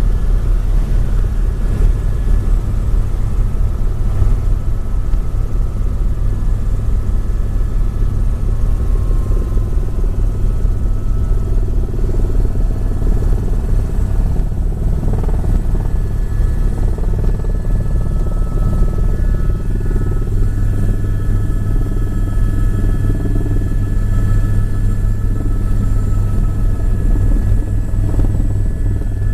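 Helicopter in flight: a loud, steady low drone of rotor and engine, with faint steady whining tones above it.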